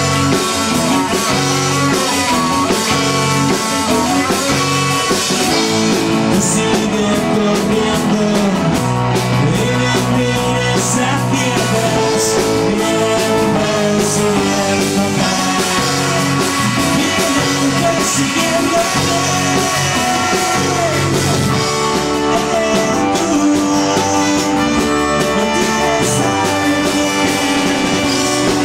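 Live rock band playing a rock-and-roll song: electric and acoustic guitars, bass, drums and keyboard, with a trumpet playing over the band.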